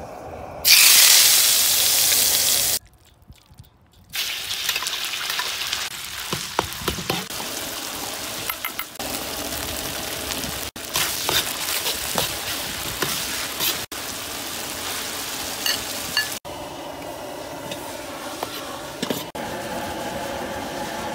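Frying sizzle in a large iron wok. About a second in there is a loud hiss lasting about two seconds, then a short quiet break. After that shredded pork and chilli bean paste sizzle steadily, with frequent clicks and scrapes of a metal spatula against the wok.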